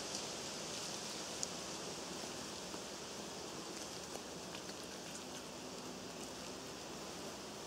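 Steady outdoor background hiss, like wind or rustling, with a few faint ticks and one small click about a second and a half in.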